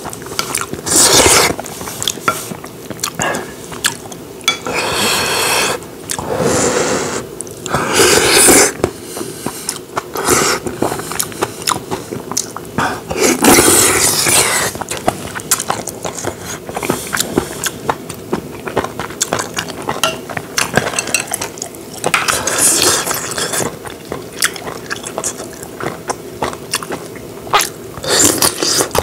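Close-miked eating: a spoon clinking and scraping in a bowl, with wet chewing of rice mixed with spicy stir-fried webfoot octopus. Many small clicks are broken by a few louder rushing sounds of about a second each.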